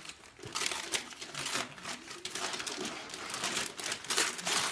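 Gift wrapping paper crinkling and tearing as it is pulled off a present by hand, in irregular rustles and rips, loudest around a second in and again near the end.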